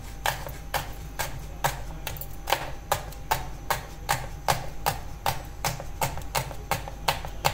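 A chef's knife slices a green bell pepper on a wooden cutting board. The blade knocks on the board in an even run of about two to three taps a second.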